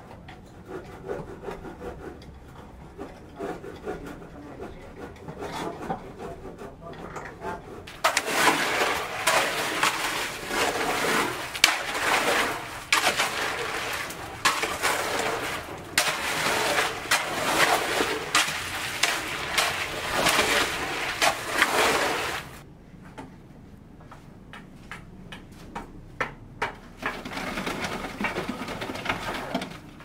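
Concrete being mixed by hand on the ground: tools scraping and rasping through the sand, cement and gravel mix in a quick, uneven rhythm of strokes. This is loud from about a quarter of the way in until it cuts off sharply about three quarters through. Before and after it there are quieter building-site sounds with scattered knocks.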